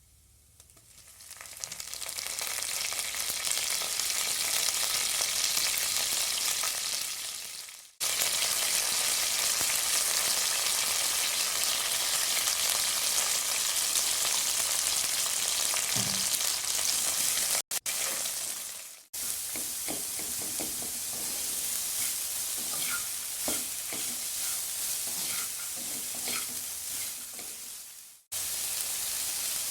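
Food sizzling in oil in a hot pan, a steady hiss that breaks off and restarts abruptly several times. In the later part, stirring adds small taps and scrapes.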